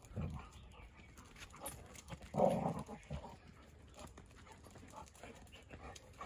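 Two dogs play-fighting, with one short, loud dog vocal sound about two and a half seconds in and a fainter one at the start, and light scuffling between.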